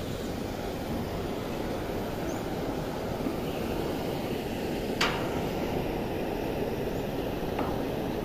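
Steady rushing of a fast-flowing shallow river, with a single sharp click about five seconds in.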